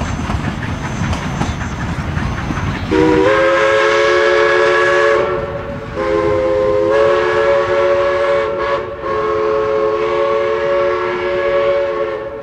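Chime steam whistle of East Broad Top 2-8-2 Mikado No. 16, several notes sounding together in three long blasts, over the running of the train. The train's rumble and clatter come first, and the whistle starts about three seconds in.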